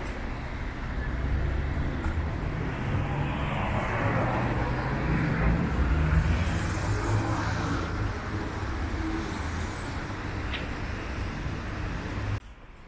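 City street traffic noise: a steady low rumble of road vehicles, louder for a moment about six seconds in, then dropping away suddenly just before the end.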